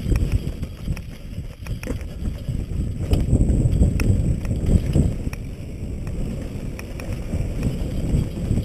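Wind buffeting the helmet-camera microphone over the rumble of a mountain bike's tyres on a rocky dirt trail, with scattered sharp clicks and rattles from the bike as it goes over rocks and bumps.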